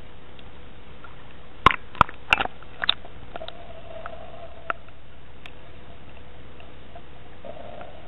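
Handling noise from an underwater camera as it goes from above the surface to below it: four or five sharp knocks and clicks in quick succession about two seconds in, and one more a few seconds later, over a steady hiss. A faint hum comes and goes after the knocks.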